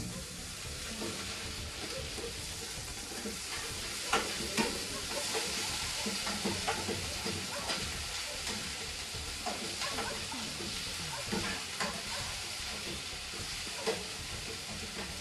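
Food frying in hot oil in a pan: a steady sizzling hiss, with scattered sharp clicks of a utensil as it is stirred.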